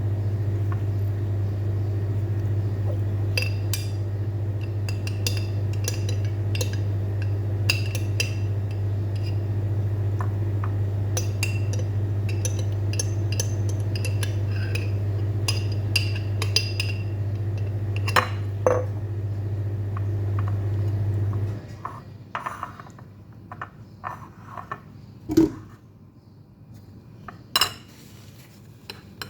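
Dishes and cutlery clinking and knocking during food preparation, over a steady low hum from a kitchen appliance that cuts off suddenly about three-quarters of the way through; a few sharper clinks follow.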